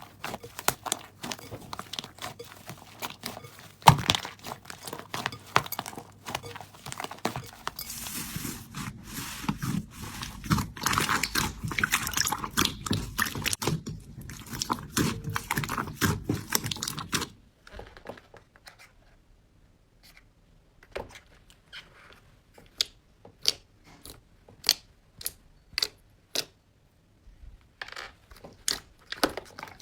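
Crunchy slime being squeezed and pressed by hand: dense crackling and popping for the first seventeen seconds or so, then single sharp pops and clicks every second or less.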